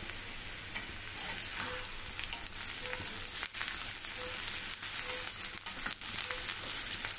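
Sliced onions and cashews frying in hot oil in a kadai, a steady sizzle, being fried toward golden brown. From about a second in, a slotted spatula scrapes and knocks against the pan as it stirs them.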